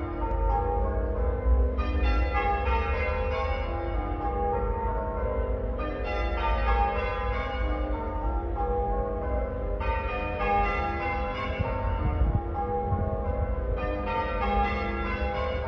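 Six church bells change ringing half-muffled: clear open strokes alternate with dull muffled ones, as one side of each clapper is padded, the ringing used for mourning or remembrance. A steady low rumble runs underneath.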